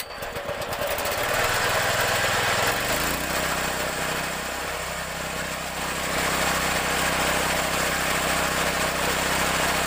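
A 6.5 HP petrol engine on a straw chopper is pull-started and catches at once. It climbs in speed over the first few seconds, then runs steadily at speed with the chopper running empty.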